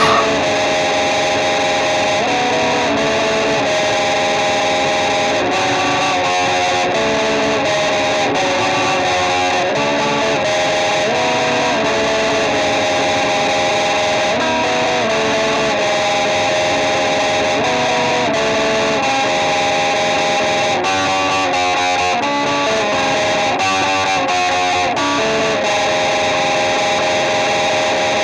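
Instrumental passage of a song: heavily distorted electric guitar plays a repeating riff whose chords change about every second, at a steady loud level with no vocals.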